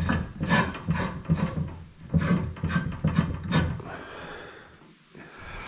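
Steel aerator parts being worked onto the tine shaft by hand: a run of irregular knocks, clinks and scrapes of metal on metal and on the bench, dying down after about four seconds.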